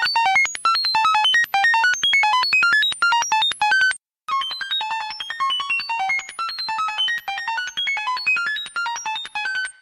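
Synthesized electronic beeps in a rapid, random-pitched stream, like a computer processing data, each beep short and clipped. The run breaks off briefly about four seconds in, then carries on.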